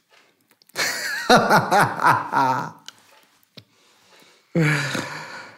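A man laughing in two bursts: a long one about a second in, and a shorter one near the end.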